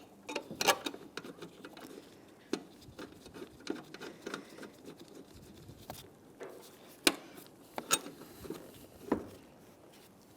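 Scattered light metallic clicks and knocks, a few sharper than the rest, from a car door being worked into place against its hinges while the hinge mounting bolts are started by hand.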